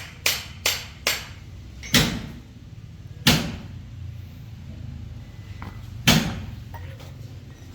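Hammer blows on metal: three quick strikes in the first second, then single strikes spaced out over the next several seconds, each ringing briefly.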